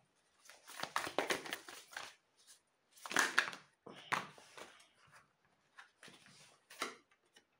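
Tarot deck shuffled by hand: cards sliding and slapping against each other in several short bouts with pauses between, and a card set down on the table.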